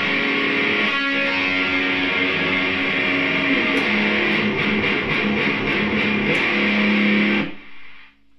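ESP LTD EC1000 electric guitar played with a heavily overdriven metal tone through a guitar amp, a dense distorted riff that cuts off near the end.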